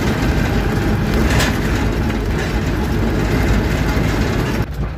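Military truck's engine and road noise heard from inside the cab as it is driven, a loud steady rumble. About four and a half seconds in, the higher part of the noise drops away and the sound turns duller.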